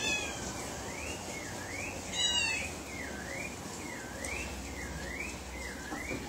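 A bird singing in the background: a run of sliding whistled notes that rise and fall over and over. A louder, fuller call comes once, about two seconds in.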